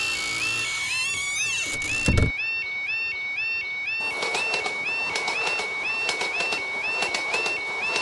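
Level-crossing warning bell dinging steadily, about two dings a second. The barrier arms lower with a hum that ends in a heavy thump about two seconds in. From about four seconds in, a passing train adds a rushing noise and a run of regular wheel clicks.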